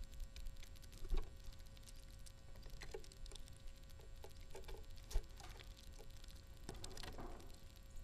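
Red-bellied woodpecker pecking through seed on a wooden platform feeder close to the microphone: scattered clicks and seed rattles, with sharper knocks of its bill on the tray about a second in and about five seconds in.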